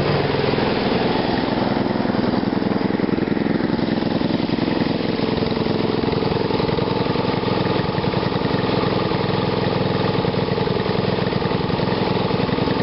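Small engine running through a homemade GEET fuel-processor reactor, idling steadily at an even pace.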